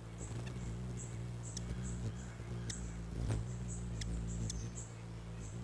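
A hummingbird giving high, squeaky chip calls several times a second, with sharper ticks mixed in, over a steady low hum.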